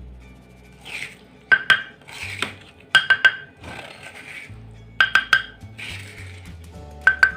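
A metal utensil clinking against a cooking pan in quick groups of two or three ringing taps about every two seconds, with scraping swishes in between, over background music.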